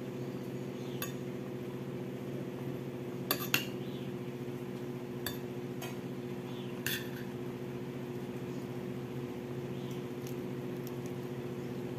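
A metal spoon clinking against a bowl a handful of times while eating, with two sharp clinks close together about three and a half seconds in, over a constant low hum.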